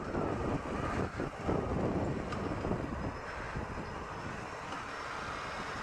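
Yamaha FZ6 Fazer motorcycle's 600 cc inline-four engine running under way, heard from a chest-mounted camera with steady road noise; the engine note rises gently toward the end as it pulls away.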